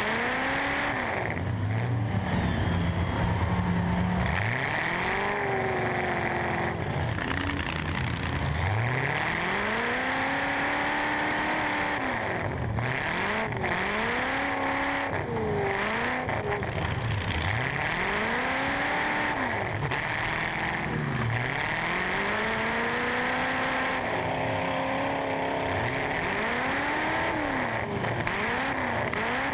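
Stock eight-cylinder truck engine heard from inside the cab, revving up and falling back over and over as the truck lunges back and forth. A few sharp knocks sound around the middle.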